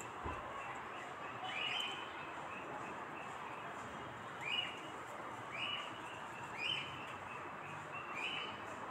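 A small bird chirping: about five short, high chirps at irregular gaps of a second or more, over a steady background hiss.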